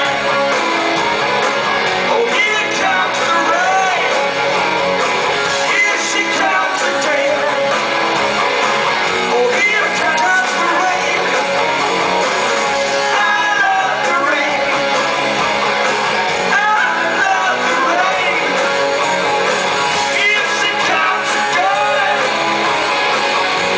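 Rock band playing live through a venue PA, heard from the audience: electric guitars, bass and drums under a lead singer's vocals, loud and steady throughout.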